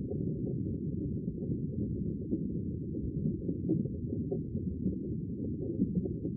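Muffled underwater noise picked up by a camera in a waterproof housing on a lake bed: a steady low rumble with faint, irregular ticks.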